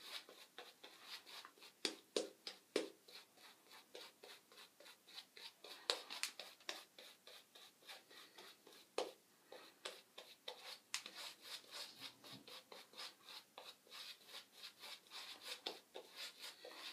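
Two-band badger shaving brush working soap into a lather, with quick, faint, even strokes at about three or four a second.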